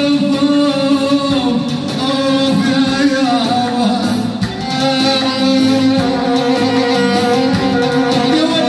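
A man sings long, bending phrases into a microphone over an electronic arranger keyboard, which holds a steady drone note under the melody. The sound is loud and amplified through PA speakers.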